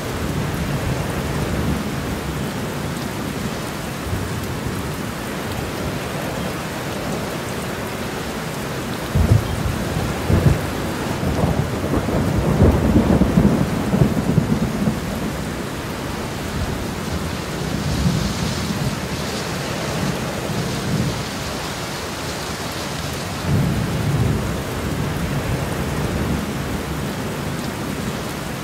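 Steady rain with rolling thunder. A sharp rumble comes about nine seconds in, followed by the longest and loudest roll in the middle, then fainter rumbles later on.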